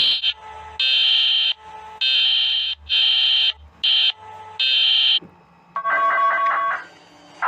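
Emergency alert alarm tones: a high-pitched tone beeping six times in pulses of uneven length, then, near the end, a lower chord of several tones pulsing rapidly.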